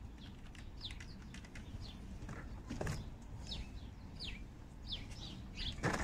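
A small bird chirping: short repeated chirps, each dropping quickly in pitch, one or two a second, over a low wind rumble. A sharp knock comes about halfway through and a louder one near the end.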